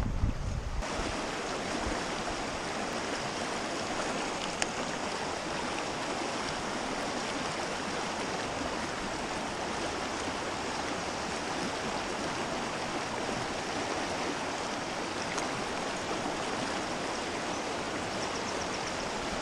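Shallow rocky stream running, a steady rush of water over stones.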